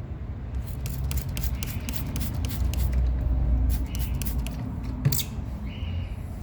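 Small clicks and scrapes of hand work on a scooter's brake parts, coming in quick irregular runs, with one sharper click about five seconds in, over a steady low rumble.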